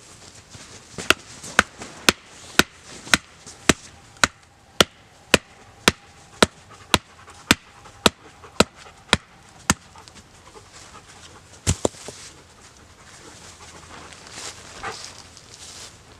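A series of about seventeen sharp, evenly spaced strikes of a tool, roughly two a second, then a pause and two more strikes close together.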